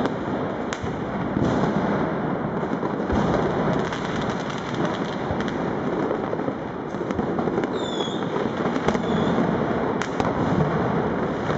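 Dense, unbroken crackle of New Year's Eve firecrackers and fireworks going off all around, many overlapping cracks and bangs with no let-up. A few brief whistles cut through near the start and again about eight and nine seconds in.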